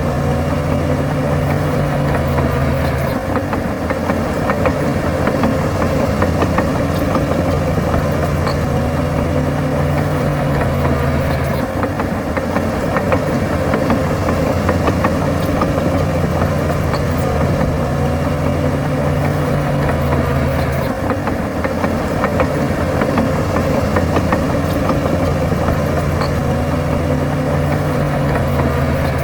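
Heavy diesel engine of earthmoving machinery running steadily, its note shifting with the load about every nine seconds.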